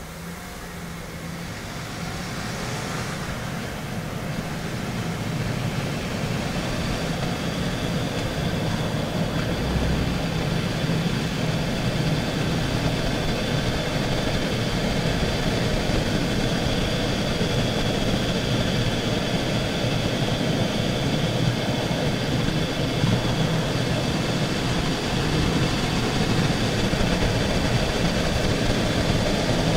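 Wheel-well sound of a Mitsubishi Chariot (N43W) on the move: tyre and running noise that grows louder over the first ten seconds, joined after several seconds by a continuous rustling, hissing 'shara-shara, shaa-shaa' scrape with a high whine in it. The owner takes it for a dragging brake.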